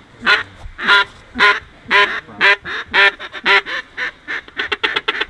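Mallard duck call blown by a hunter: a string of about seven loud, evenly spaced quacks about two a second, running into a fast chattering feed call about four seconds in.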